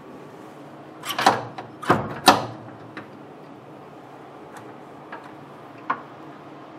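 Knocks and clunks of a mug rotary jig being fitted and fastened onto its steel mounting rods in a UV flatbed printer: three loud knocks between about one and two and a half seconds in, then a few light clicks.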